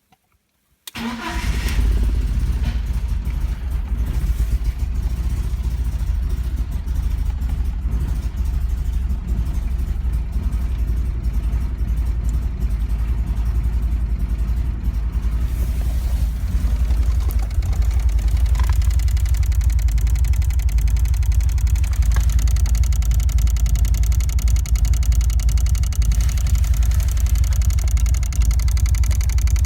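BMW E46 318i's M43 1.9-litre four-cylinder engine cranking and catching about a second in, then idling roughly. The rough idle follows a sudden loss of power on the road, with fuel, spark and many sensors already replaced and no fault codes.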